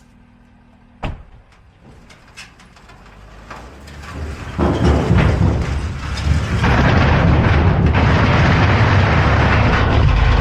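Heavy machinery hauling a large metal culvert pipe: a sharp knock about a second in, then a loud low rumble and grinding that builds from about four seconds in and holds.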